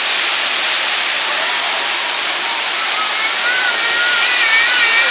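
Waterfall rushing: a loud, steady wash of falling water close by. In the last two seconds a faint, wavering high-pitched call sounds over it.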